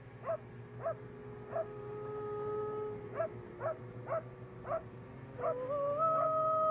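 A dog barking in short, repeated yaps, about two a second, over a low steady drone. Near the end a held musical tone slides up and settles.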